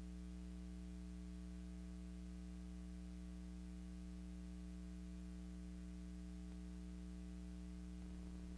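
Steady low electrical hum with a faint hiss, and nothing else: the empty soundtrack of a silent film transfer.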